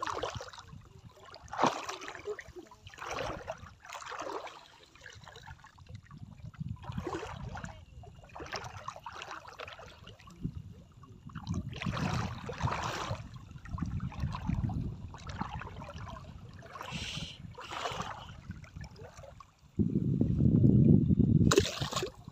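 Water sloshing and splashing in uneven strokes every second or two, as in wading through shallow sea. About twenty seconds in comes a loud low rumble lasting about two seconds.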